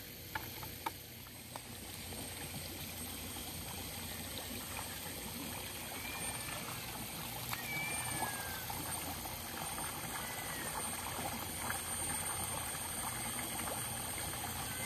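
Water pouring steadily out of a large pipe into a pond, a continuous splashing rush that grows slightly louder about two seconds in. A few faint high chirps sound in the middle.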